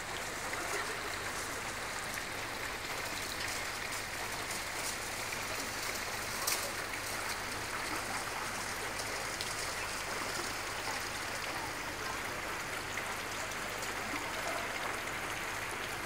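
Fast-flowing flash-flood water rushing past in a steady wash, with one sharp click about six and a half seconds in.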